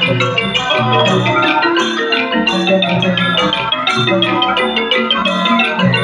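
Thai Mon piphat ensemble playing funeral music: fast, dense runs on the ranat xylophone and the Mon gong circle (khong mon) over low sustained tones, picked up by microphones and played through a sound system.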